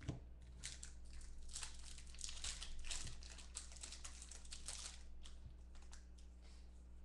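Foil wrapper of a 2015 Bowman Football trading-card pack crinkling and tearing as it is ripped open by hand: a dense crackle that thins to scattered rustles after about five seconds.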